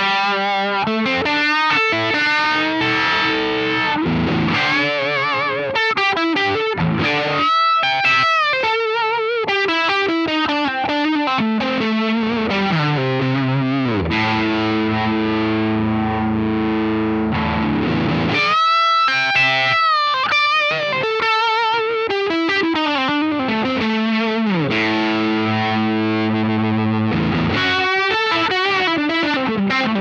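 Overdriven electric guitar played through a DOD Phasor 201 phaser pedal, its sweep making the notes waver quickly. The playing is sustained chords and lines with downward slides, stopping briefly twice.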